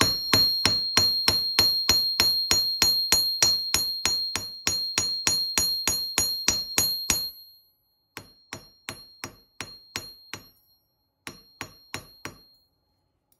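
Hammer striking the end of a copper wire ring on a small steel anvil: a fast, even run of about four ringing blows a second, then, after a pause about seven seconds in, two shorter groups of lighter taps. The blows flatten the wire's end into a flared paddle.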